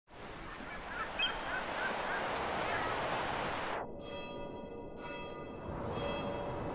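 Surf washing on a sandy beach, with a few short bird calls, cut off by a sweeping filter a little under four seconds in. Then the intro of an electronic music track, with steady bell-like chiming chords.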